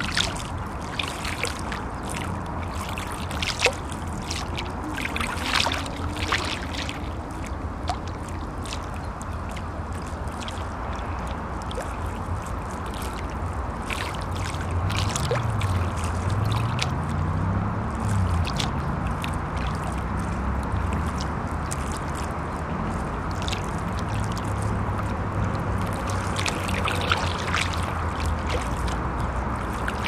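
Small river waves lapping and splashing against the bank, over a steady rumble of traffic crossing a bridge. From about halfway a low hum that rises and falls in pitch grows a little louder.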